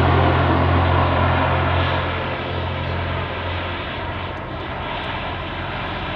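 Aircraft engine running, a dense steady noise, with a strong low hum underneath that drops away about three seconds in.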